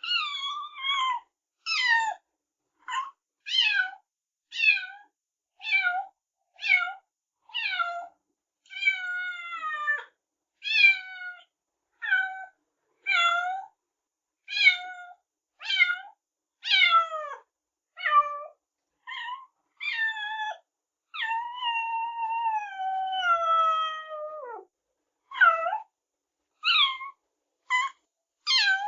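Kitten meowing over and over, high-pitched calls falling in pitch, about one a second, with one longer drawn-out meow about three-quarters of the way through.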